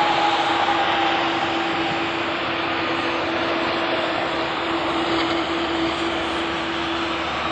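Boeing 787-8 jet engines running at taxi power as the airliner rolls past: a steady whine and rush of noise with one tone that slowly falls in pitch over the first few seconds.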